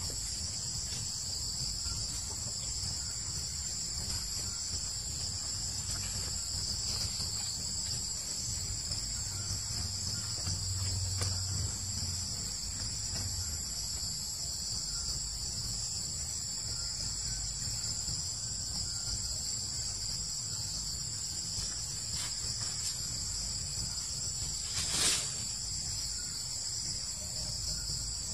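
Steady, high-pitched insect chorus, with one sharp click near the end.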